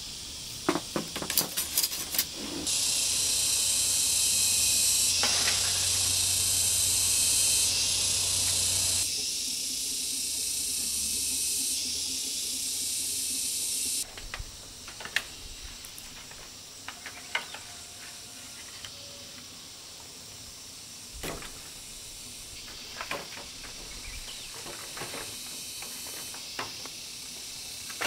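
Machete clicking and knocking against a bamboo strip, then a loud steady high hiss for about ten seconds that stops abruptly. After it come scattered light knocks of bamboo poles being handled over a quieter high background.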